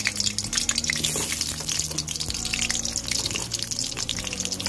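Raw potato chunks frying in hot mustard oil in a wok: a steady, dense sizzle full of small crackles and pops as the oil bubbles around them.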